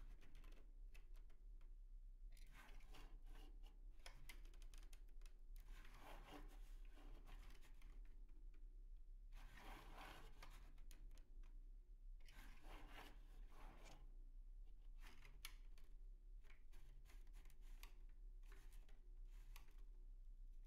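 Faint rustling and rubbing of a red 3D-printed plastic flexure squeezed and released by hand, in several short bursts a few seconds apart, over a low steady hum.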